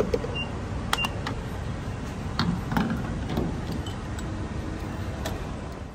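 Gas pump nozzle being handled and fitted into a pickup truck's fuel filler neck: a few sharp clicks and knocks in the first three seconds over a steady low rumble of outdoor noise.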